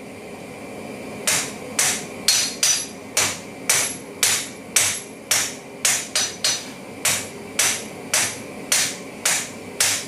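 A hand hammer strikes the red-hot end of a twisted steel bar on an anvil, drawing it out to a taper. The blows start about a second in and come about twice a second, each with a short metallic ring from the anvil.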